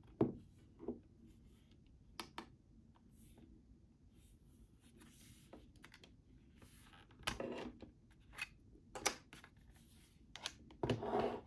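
Hands handling a plastic digital photo frame and its power cable: scattered light clicks and knocks with a few short scrapes and rustles, as the DC plug is pulled from the frame's jack and the frame is lifted and set down on a wooden table.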